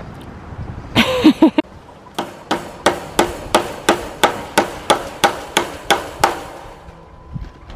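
Claw hammer driving staples to fasten a steel cattle panel to a wooden door frame: a run of about a dozen evenly spaced strikes, about three a second, after a brief louder sound about a second in.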